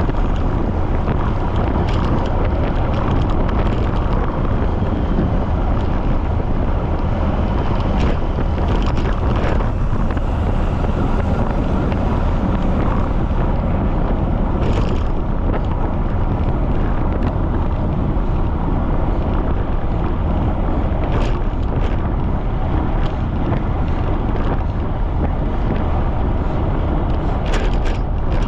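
Strong wind buffeting the microphone of a camera riding on a moving bicycle: a loud, steady low rumble, with a few brief clicks or knocks scattered through it.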